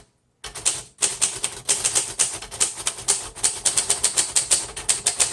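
1938 Royal Model O portable manual typewriter being typed on: a quick, steady run of key strikes that starts about half a second in.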